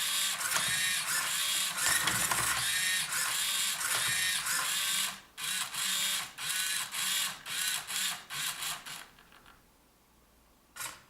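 Small hobby servo motors of a 3D-printed Rubik's cube robot whining through a quick series of short moves as they turn and flip the cube. The moves stop about nine seconds in, and one more brief move comes near the end.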